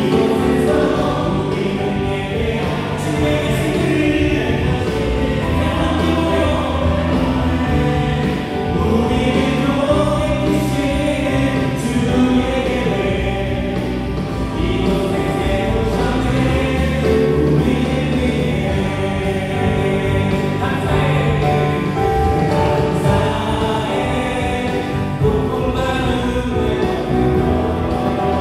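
Live contemporary Christian worship band playing a song: voices singing over electric guitar, electric bass, keyboards and drums.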